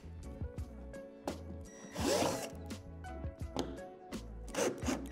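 Power drill with a 3/8-inch bit boring out the moulded divots in a plastic slide, in short bursts: a louder one about two seconds in and another near the end.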